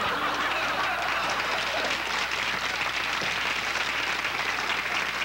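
Studio audience applauding: a steady, even wash of clapping.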